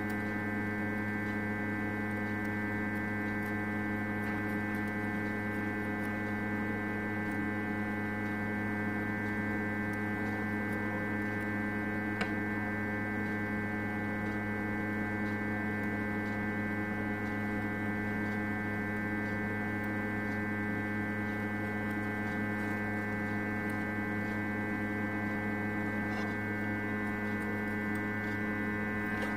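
Steady electrical hum with several pitches stacked together, from a hot-air rework station running while it heats a phone board. There is one faint click about twelve seconds in.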